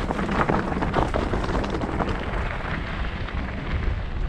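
Mountain bike rolling fast over a stony dirt singletrack: wind buffeting the microphone in a steady low rumble, with frequent clicks and clatter from the tyres and bike over the stones.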